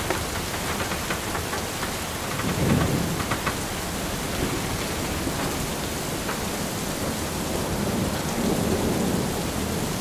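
Heavy thunderstorm rain, a steady hiss, with low rumbles swelling up about two and a half seconds in and again near the end.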